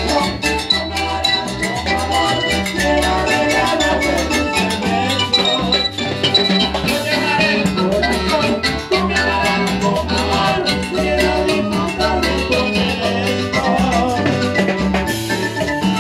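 Live Latin tropical dance band playing raspacanilla: a keyboard melody over timbales, conga and cymbal, with a steady bass pulse beneath.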